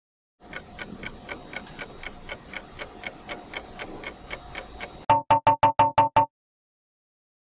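Quiz countdown timer sound effect: clock-like ticking about four times a second over a soft musical bed, then a quick run of seven loud beeps as time runs out, after which it goes silent.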